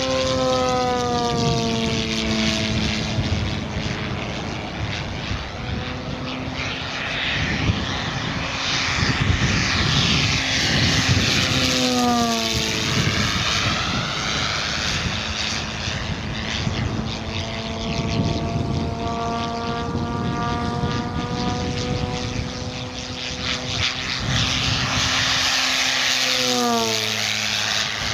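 Giant-scale RC P-51D Mustang's two-blade 24x8 Biela propeller, spun by a brushless electric motor with no sound generator fitted, humming as the model makes low fly-bys. The pitch drops sharply as it sweeps past, three times: near the start, about halfway through, and near the end.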